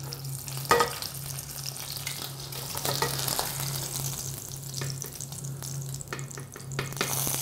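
Rib-eye steak searing in hot clarified butter in a pan, a steady frying sizzle as it is turned and lifted with metal tongs. A click about a second in, and a low steady hum underneath.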